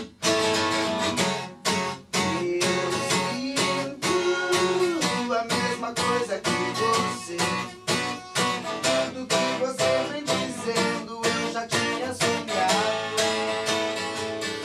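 Acoustic guitar strummed in a steady rhythm, playing chords of a song.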